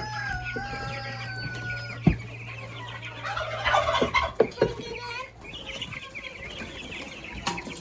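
Chickens clucking and calling, busiest about four seconds in, over a steady low hum that stops about five seconds in, with a few sharp knocks.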